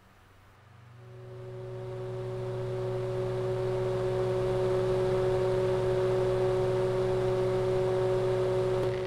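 An old military radio set coming on: a hum and hiss swell up over about two seconds, then hold steady with a few steady tones, as the set warms up and stands open on an empty channel.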